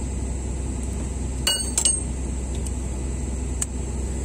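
Metal tools or engine parts clinking together twice about a second and a half in, each clink ringing briefly, with a lighter tick near the end, over a steady low hum.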